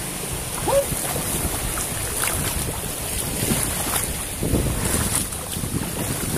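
Wind noise on the microphone over shallow water splashing and sloshing as a person wades through it and prods the bottom with a long stick.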